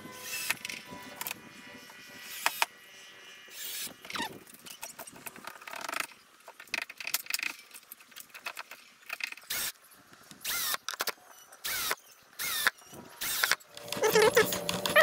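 Clicks, knocks and short squeaks of metal fittings on a benchtop wood lathe being adjusted and tightened by hand. A steady hum comes in near the end and is the loudest part.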